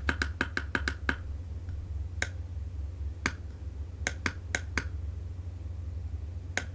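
Small push-buttons on a Quran cube speaker clicked again and again, a quick run of about eight in the first second, then single clicks and another run of four, while the volume is tried up and down. A steady low hum runs underneath.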